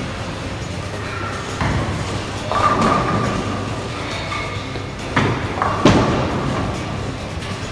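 Bowling alley din: bowling balls thudding onto the lanes and clattering among the pins, several times. The loudest, sharpest thud comes about six seconds in, as the bowler's ball lands on the lane.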